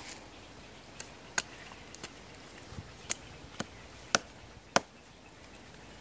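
Hatchet chopping into the trunk of a standing tree: a series of sharp blows at an uneven pace, stopping a little before the end.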